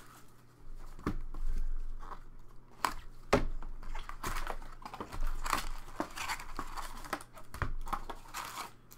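Upper Deck Champ's hockey card packs crinkling and rustling in their wrappers as they are pulled out of the cardboard box and stacked, with irregular taps and knocks of packs and box against the table.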